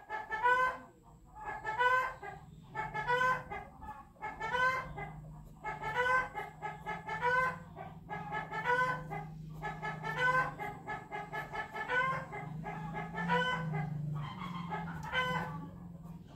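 Chickens clucking in repeated calls, roughly one a second, over a low steady hum.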